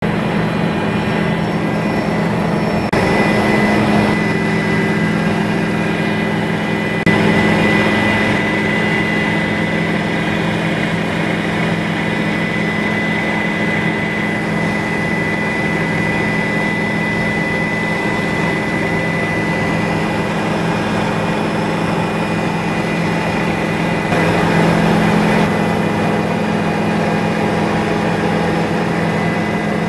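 Bell 206 helicopter in flight, heard from inside the cabin: a steady turbine and rotor drone with a thin high whine over it, swelling slightly a few times.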